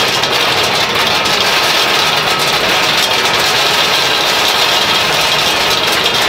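Continuous mesh-belt cocoa bean roaster running, giving a steady, even machine noise.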